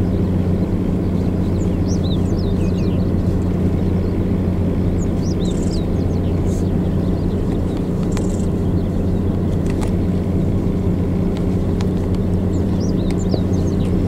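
Vehicle engine idling with a steady low hum, with a few faint, short, high bird chirps now and then.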